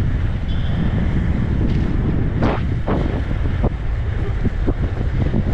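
Wind buffeting the microphone of a camera carried by an inline skater at speed, a loud, steady low rumble, with a few short sharp knocks or scrapes a couple of seconds in.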